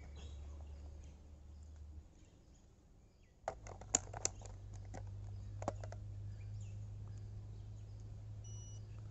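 A few sharp clicks as a digital multimeter is handled and its rotary selector is turned to diode mode, over a faint low steady hum.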